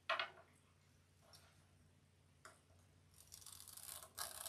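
Hot wood-burning tool with a stencil tip drawn along a ruler, melting through plastic deco mesh on a glass board: a scratchy hiss starting about three seconds in, with a brief break just after four seconds. A short tap comes right at the start.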